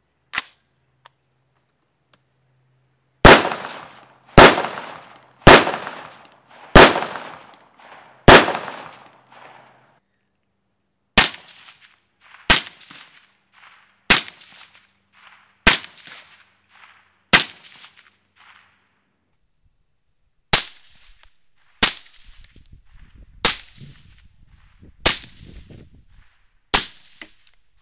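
Ruger SR556 takedown rifle firing 5.56 rounds, fifteen shots in three strings of five. The first five shots come a little over a second apart with long ringing tails, from the bare muzzle. The last ten come about a second and a half apart through the Innovative Arms Interceptor 556 QD suppressor, fired dry.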